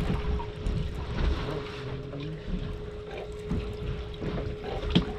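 Wind buffeting the microphone aboard a boat at sea, over a thin steady hum and a sharp click near the end.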